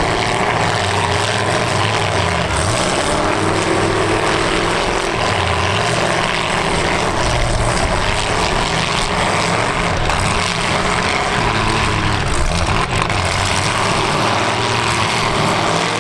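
Demolition derby cars' engines running loud and revving up and down.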